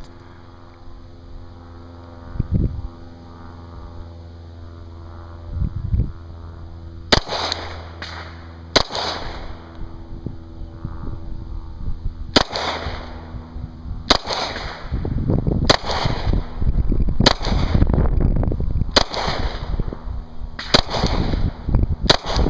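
Gen 2 Glock 22 pistol in .40 S&W fired one-handed and limp-wristed, about nine sharp shots. The first comes about seven seconds in, then one every second and a half to two seconds. The pistol cycles every round without a stoppage.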